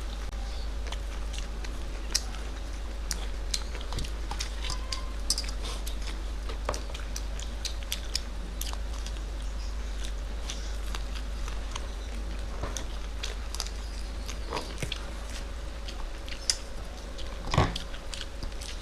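Close-miked eating of a rui fish cutlet and rice: chewing with many small, scattered mouth clicks and smacks, and one louder click near the end.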